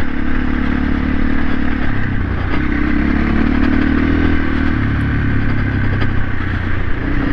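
Off-road motorcycle engine running under way, its note shifting a couple of times, with strong gale wind buffeting the helmet microphone.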